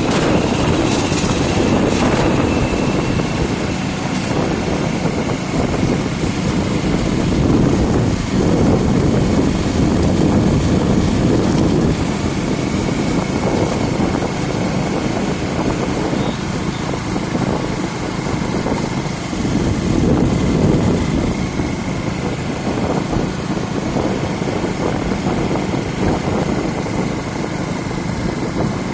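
Motorcycle running steadily at road speed: a dense engine and road rumble. A faint steady high whine joins about twelve seconds in.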